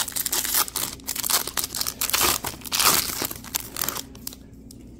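A sealed Topps Chrome Platinum baseball card pack being torn open by hand, its crimped wrapper crinkling and tearing in a quick run of rustles that stops about four seconds in.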